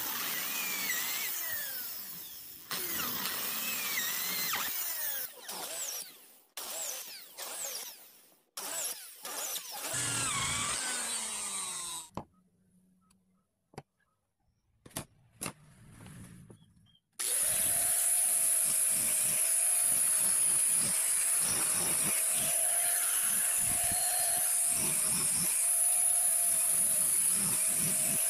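Electric drill boring a row of holes through wood in short stop-start bursts, its motor whine rising and falling with each burst. After a short quiet gap with a few clicks, an angle grinder fitted with a sanding pad starts and runs steadily, sanding a wooden part.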